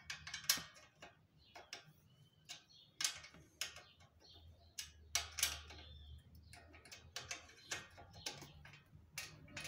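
Irregular metallic clicks and clinks, roughly one or two a second, from an Allen key turning and being reset on the bolt that clamps a bicycle's centre kickstand to the frame, as the bolt is tightened.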